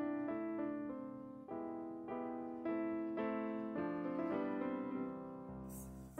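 Background piano music: a gentle melody of changing notes over chords. A short noisy hiss comes near the end.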